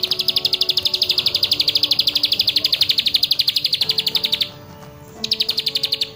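Plain prinia (ciblek sawah) singing: a long, fast trill of high repeated notes, about ten a second, that stops about four and a half seconds in, followed by a shorter trill near the end.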